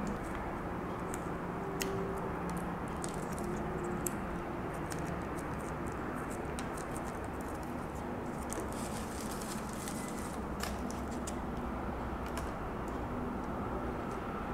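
Crinkling and small clicks of a plastic chili sauce sachet being torn open and squeezed out onto a paper wrapper, thickest a little past the middle, over a steady low hiss.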